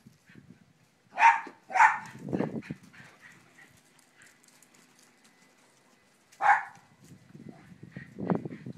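Small dog barking sharply: two barks close together about a second in and another near six and a half seconds, with softer low, rough noises in between.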